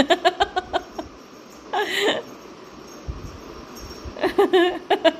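A person laughing in quick bursts, a short run of 'ha-ha' pulses at the start and again near the end, with one drawn-out vocal cry about two seconds in.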